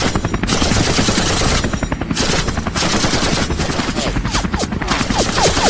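Rapid automatic gunfire, a film firefight sound effect: dense bursts of machine-gun shots in quick succession, with short falling whistles joining in during the second half.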